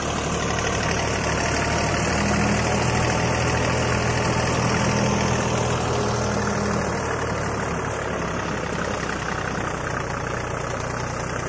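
Deutz-Fahr Agrolux 50 tractor's diesel engine running at full throttle under load, driving a Shaktiman rotavator through the PTO in first low gear. About seven seconds in the note gets a little quieter as the engine's RPM drops under the load.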